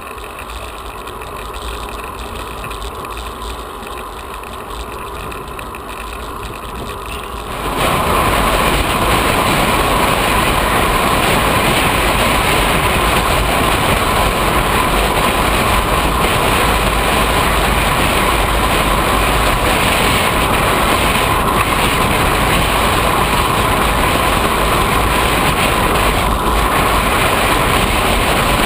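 Wind rushing over the microphone of a camera on a moving road bike, a steady loud noise that jumps up sharply about eight seconds in and stays loud.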